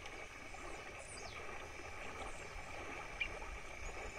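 Rain-swollen, muddy river in flood flowing past, heard as a low, steady rushing noise of water.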